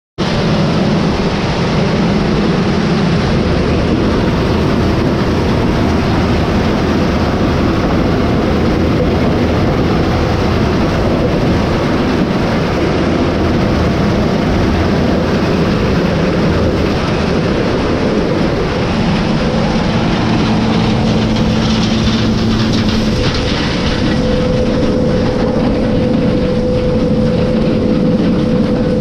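Heavy farm machinery running steadily, a loud, even rumble and rush, with a steady whine coming in about two-thirds of the way through.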